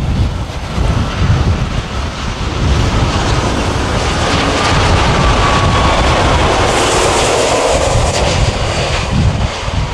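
Boeing 787-9 airliner's jet engines at approach power as it flies low past on landing, growing louder to a peak over the middle and later part, with a faint whine that slowly falls in pitch as it goes by.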